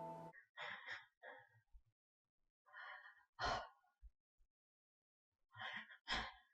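A woman sighing and breathing heavily, in three short groups with silence between.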